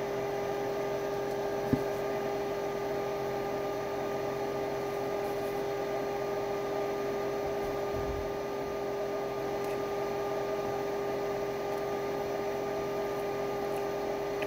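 Steady machine hum with one strong constant tone and fainter ones above it, and a single short click about two seconds in.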